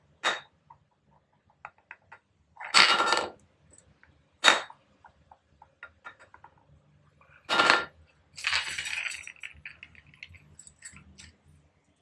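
A trigger spray bottle squirted five times as short hissing spritzes, the last one longer and trailing off. Small clicks of the trigger and bottle come between them.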